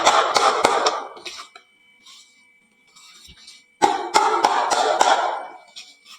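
Marbles clattering down a wooden marble-run slope and into toy trucks: two bursts of rapid rattling clicks, each a little over a second long, about three and a half seconds apart. A thin steady high tone runs beneath.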